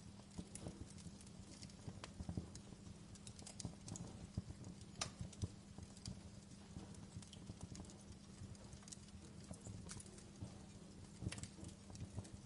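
Wood fire burning in a fireplace, crackling with irregular snaps and pops over a low steady hum; a few sharper pops stand out, the sharpest about five seconds in.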